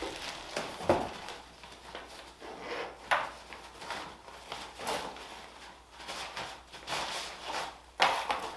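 Telescope accessories and their packaging being handled while unboxing: irregular rustling with scattered clicks and light knocks, sharper ones about a second in, around three seconds in and near the end.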